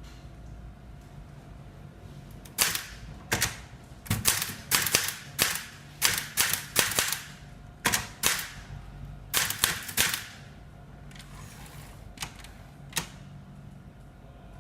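Manual typewriter keys striking the platen in irregular runs of sharp, loud clacks, with pauses between groups and only a few scattered strikes near the end.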